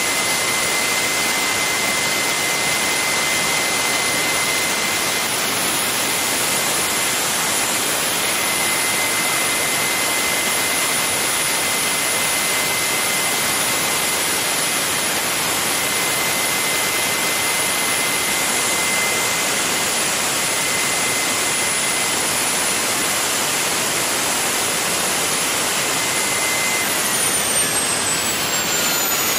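Garrett GTCP85 gas-turbine APU running: a loud, even roar with a steady high-pitched whine. Near the end the whine slides down in pitch.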